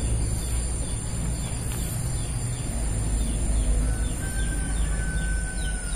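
Outdoor ambience among trees: a steady low rumbling noise, with faint short bird chirps repeating about twice a second and a thin steady whistle starting about four seconds in.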